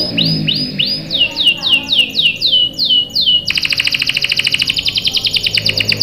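Canary singing: a run of falling whistled notes, about three a second, then from about three and a half seconds in a fast rolling trill of rapid repeated notes.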